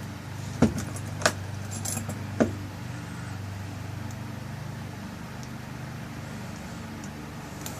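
A few sharp metallic clicks and clinks in the first two and a half seconds as small lock parts are handled, with the tail piece being screwed back onto a rekeyed lock cylinder. A steady low hum runs underneath.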